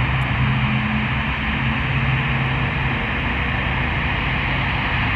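Jet engines of an easyJet Airbus A320-family airliner running steadily on the runway: an even hiss with a low steady hum beneath it.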